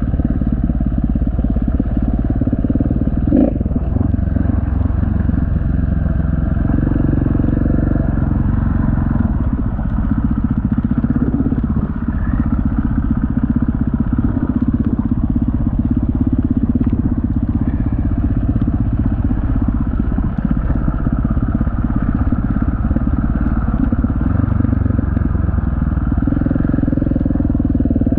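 Enduro dirt bike engine running steadily under throttle on a rough trail, easing off briefly a couple of times in the middle. There is a single sharp knock about three and a half seconds in.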